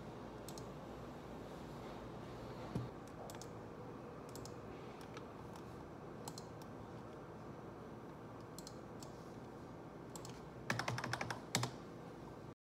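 Typing on a computer keyboard: scattered single keystrokes, then a quick run of several keys near the end.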